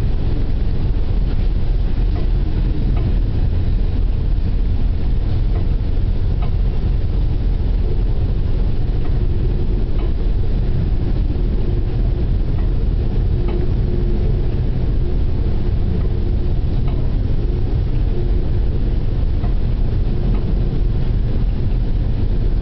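Steady low rumble aboard a stern trawler steaming through heavy seas, unbroken throughout.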